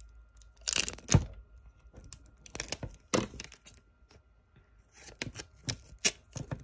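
Clear sticky tape being pulled off its roll and torn, in several short noisy pulls: one about a second in, more around three seconds in and between five and six seconds in, with crinkling and light taps in between.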